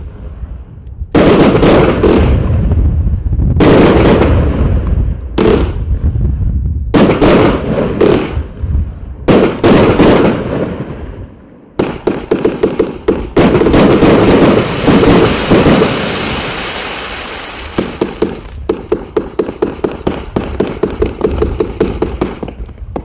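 Riakeo Night Stalker 199-shot compound firework cake firing. For the first half, loud shots burst roughly once a second, each trailing off in crackle. Then it goes into a rapid volley of shots with a dense crackling, settling near the end into about four or five quick shots a second.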